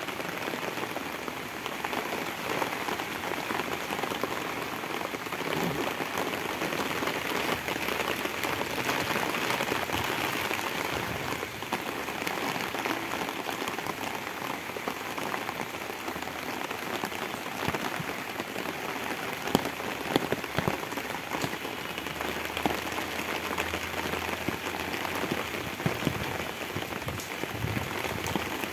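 Steady rain falling, an even patter of many drops, with a few louder drops hitting close by about two-thirds of the way through.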